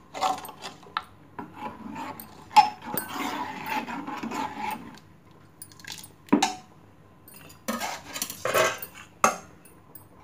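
Metal spoon mashing and stirring thick cooked lentils and wheat in a pressure cooker pot, scraping and clinking against the pot's metal sides in irregular bursts. A few sharper knocks come in the second half.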